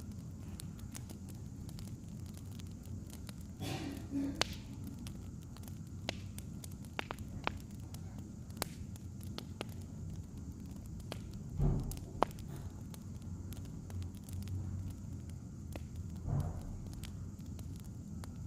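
Wood fire crackling, with irregular sharp pops over a steady low rumble and a few louder flare-ups: about four seconds in, near the middle, and near the end.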